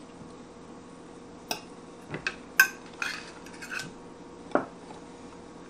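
A handful of sharp clinks and knocks of a glass loaf pan and a utensil against a plate as a meatloaf is slid off the pan, the loudest about two and a half seconds in.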